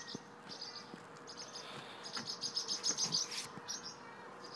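Parent songbirds giving repeated alarm chirps, quick runs of high notes in several bouts, as their fledgling is handled near the nest.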